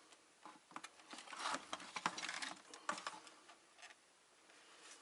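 Quick clicks and rattles of plastic parts and a small circuit board being handled, busiest from about half a second to three and a half seconds in.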